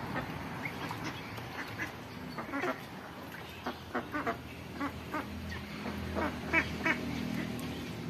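A flock of domestic ducks quacking: a run of short quacks starts about two seconds in and is loudest near the end.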